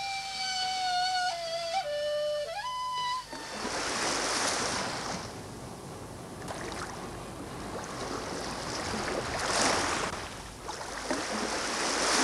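A solo flute plays a slow melody that ends in a quick rising run. About three seconds in, the music gives way to sea waves breaking and washing, swelling and easing in surges a few seconds apart.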